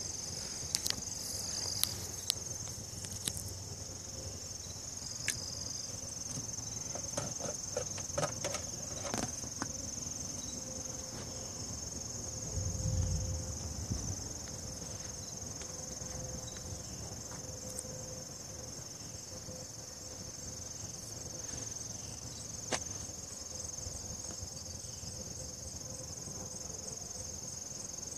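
Crickets trilling steadily, with a few scattered light clicks and knocks.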